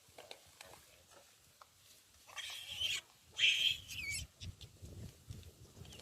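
A monkey giving two harsh screeching cries about two and three and a half seconds in, the second ending in a short falling squeal.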